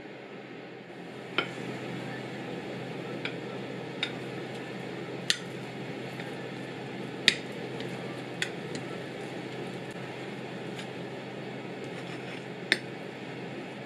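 A metal spoon clinking against a glass baking dish and a ceramic plate while cutting and scooping out cake: a handful of sharp, separate clinks over a steady low background hum.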